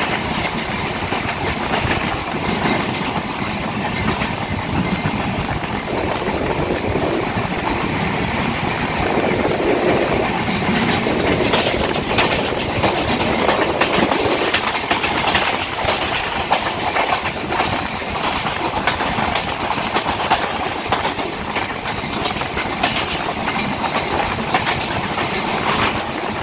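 Moving passenger train heard close beside the coach from an open window: a steady running rumble, with the wheels clacking over rail joints.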